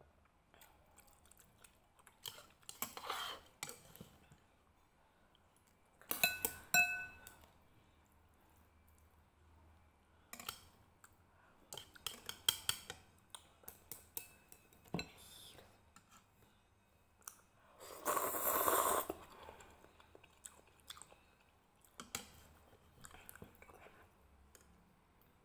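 Close-up eating sounds of instant noodle soup: chewing and slurping noodles, with a few light clinks of chopsticks and spoon against the ceramic bowl, one of them ringing briefly. The loudest sound is a slurp of about a second and a half, roughly three-quarters of the way through.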